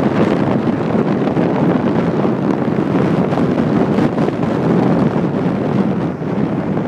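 Wind buffeting the microphone and road noise from a moving car, a loud, steady rush.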